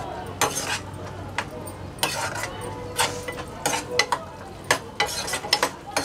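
Metal spoon stirring and scraping through thick chilli paneer gravy in a pan, with irregular scrapes and clinks against the pan over a steady sizzle from the sauce cooking on the flame, as cornflour paste is stirred in to thicken it.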